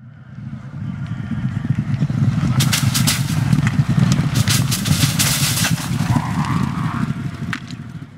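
Steeplechase horses galloping up to and over a plastic birch fence: a rumble of hooves that swells and fades, with a run of sharp crackles through the middle as they brush through the plastic birch branches.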